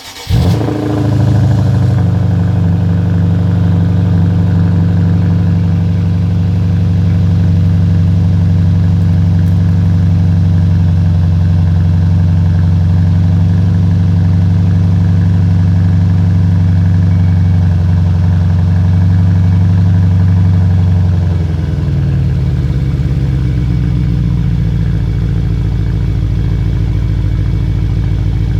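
Exhaust of a 2013 BMW 550i's N63 twin-turbo V8 with the mufflers deleted, on a cold start at freezing. The engine catches just after the start with a brief flare, then runs at a steady fast cold idle. About 21 seconds in, the idle drops to a lower, deeper note as it settles.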